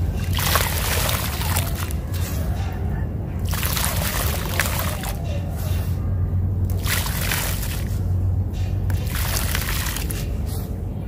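Handfuls of dry sand-cement crumbles dropped and sprinkled into a plastic tub of water, splashing and fizzing in about five separate bursts with short pauses between them.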